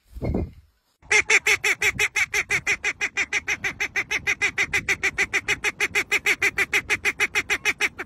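A short low dove coo, then from about a second in a white domestic duck quacking rapidly and without a break, about six quacks a second.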